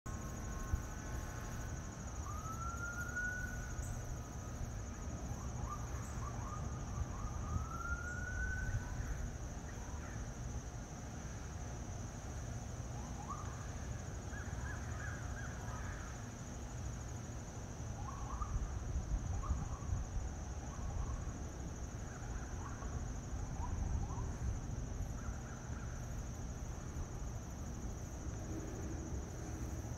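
Outdoor ambience: a steady low rumble with a constant high-pitched tone over it, two rising wails a few seconds in like a distant siren, and scattered short bird calls later on.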